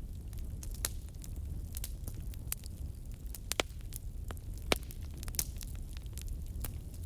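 Wood fire burning in a fireplace: irregular sharp crackles and pops over a steady low rumble of the flames, with the loudest pop a little before the five-second mark.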